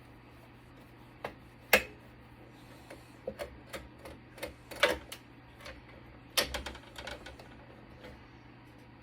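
Irregular clicks and metallic taps of hand tools and screws on the sheet-metal case of a Cisco Catalyst switch being taken apart for scrap. The sharpest tap comes about two seconds in, with quick runs of taps around five and seven seconds, over a faint steady hum.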